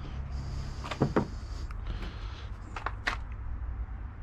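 Handling noise from fibreglass repair work with a resin brush and fibreglass mat: a soft rustle for about two seconds, then a few light clicks and knocks, over a steady low rumble.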